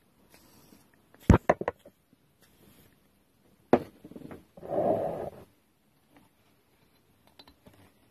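Tools and metal parts being handled while working on a strimmer's recoil starter: a quick run of sharp clicks and knocks about a second in, another knock a little later, then a short rasping noise lasting about a second.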